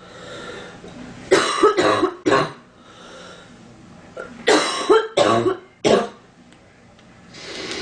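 A girl coughing in two fits of about four short coughs each, the first beginning about a second and a half in and the second about four and a half seconds in.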